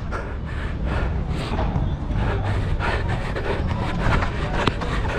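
A player's running footsteps with heavy handling and wind rumble on a body-worn GoPro action camera. There is a sharp knock near the end.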